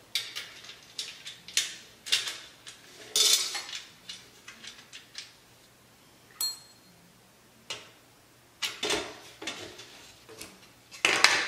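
Irregular clicks, clacks and light metallic clinks as spring clamps and a plastic jig are worked against aluminium extrusions on a stone countertop, with a brief ringing ping about six and a half seconds in.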